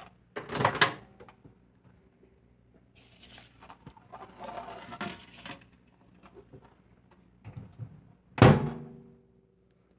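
Clicks and knocks of handling at a microwave oven as a plate of candy is put inside, with one loud thunk about eight and a half seconds in.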